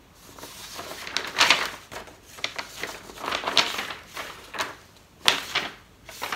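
Sheets of paper being shuffled and turned over by hand: a run of short rustles and crackles, with no voice.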